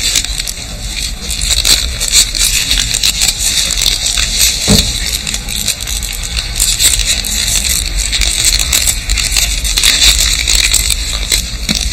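Steady crackling, scraping noise full of small clicks, with one dull knock just under five seconds in.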